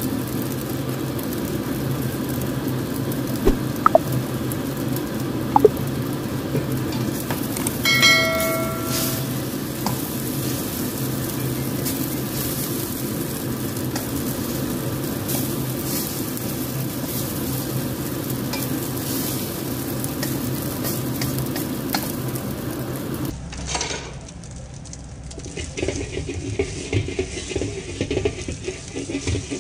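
A shrimp omelette sizzling as it fries in oil in a non-stick pan, over a steady low hum, with a few sharp clicks of a spatula against the pan. A brief ringing tone sounds about eight seconds in. After about 23 seconds the sizzle is quieter and patchier.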